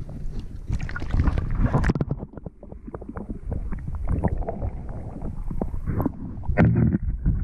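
Water sloshing and swirling, heard muffled through an action camera's waterproof housing held underwater, with a dense run of knocks and bumps on the housing.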